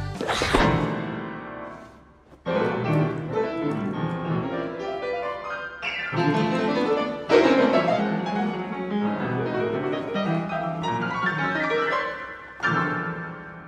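A sharp struck sound rings out and fades over about two seconds. Piano music then comes in: a flowing classical-style piece, with new phrases entering a few times.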